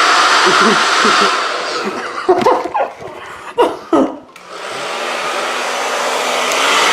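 Handheld hair dryer blowing loudly on high. About four seconds in it cuts out briefly, then comes back on and builds up again. A few short, loud vocal outbursts cut through it in the middle.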